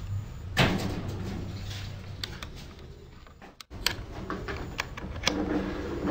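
Sharp wooden knocks and clicks as the homemade wooden drill press stand and its drill carriage are handled and adjusted, with a loud knock about half a second in and a clatter of clicks near the end, over a faint low hum.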